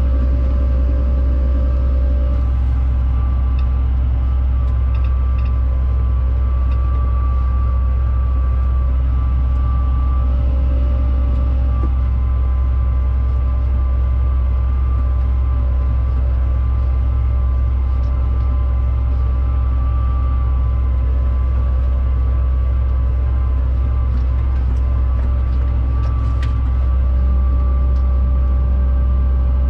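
Fendt 936 tractor running steadily under load as it pulls a seed drill across the field: an even, deep engine drone with a faint steady whine above it.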